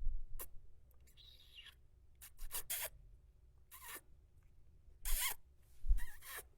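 A series of short, wet kissing smacks of the lips, separated by pauses, with a quick cluster of several a little over two seconds in and two louder ones near the end.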